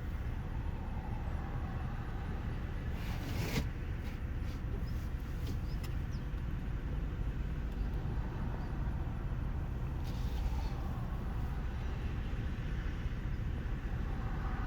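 Vehicle engine running, a steady low rumble heard from inside the vehicle, with one brief sharp noise about three and a half seconds in.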